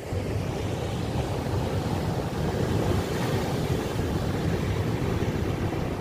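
Sea surf breaking against rocks and a concrete tetrapod breakwater, a steady wash that swells slightly around the middle, with wind rumbling on the microphone.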